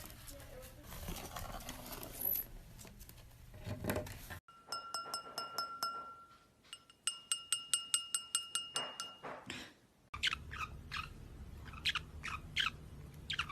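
A run of short, evenly spaced pinging ticks, then, about ten seconds in, a parrot's quick chirps and whistles rising and falling in pitch.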